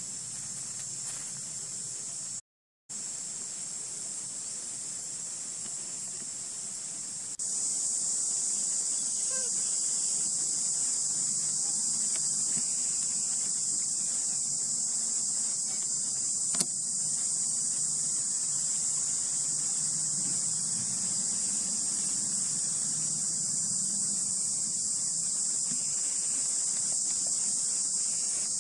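Insects droning steadily, a continuous high buzz with no break in its rhythm. It cuts out for a moment about two and a half seconds in and gets louder about seven seconds in, with a single sharp click near the middle.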